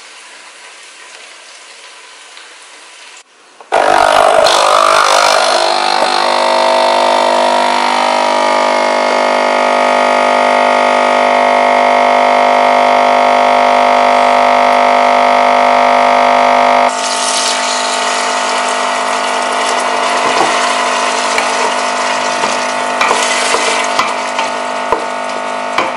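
Capsule espresso machine's pump starting suddenly a few seconds in and humming steadily as espresso pours into a glass cup. About two-thirds of the way through the hum gives way to a noisier stretch with small clicks: the sofrito of carrot and onion sizzling in a steel pot while a wooden spoon stirs it.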